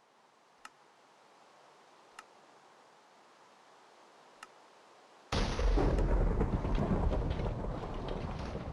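Three faint sharp ticks, then about five seconds in a sudden loud rumbling noise that carries on, slowly easing.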